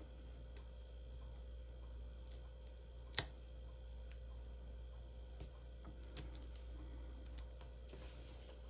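Quiet handling of cardstock and double-sided tape, with faint scattered taps and ticks and one sharp click about three seconds in, over a steady low hum.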